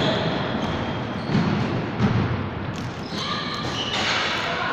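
Basketball game sounds in a gym: a basketball thumps on the hardwood floor a couple of times, and high sneaker squeaks come in the second half.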